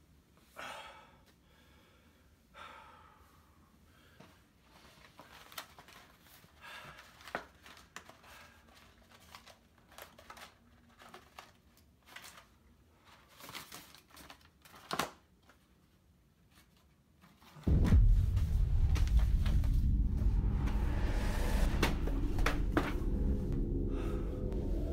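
Quiet rustling and small clicks of hands handling a small cardboard box. About 18 seconds in, loud music with a heavy bass rumble starts suddenly and keeps going.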